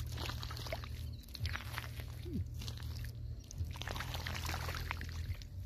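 Hands scooping and squeezing wet mud in shallow muddy water: irregular squelches and small splashes, over a steady low hum.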